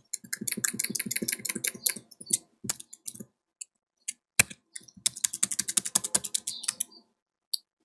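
Typing on a computer keyboard: a quick run of keystrokes, a few scattered single key presses, then a second quick run.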